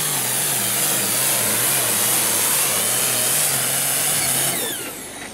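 Hot farm class pulling tractor's turbocharged diesel running wide open under full load, dragging a weight-transfer sled. About four and a half seconds in the engine backs off and the sound falls away with a falling whine at the end of the pull.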